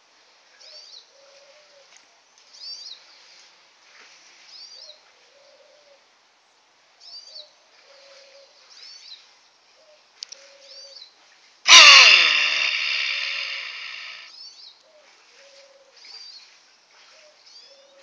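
A capybara barking: short, gruff alarm calls repeated about every one and a half to two seconds, as at a cat it has spotted. About twelve seconds in, a sudden loud clang rings on for a couple of seconds and then cuts off.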